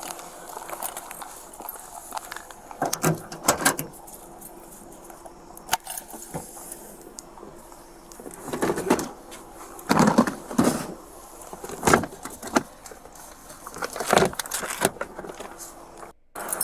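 A bunch of keys jangling, with irregular rustling and clattering of handling right up against a body-worn camera's microphone, in scattered bursts.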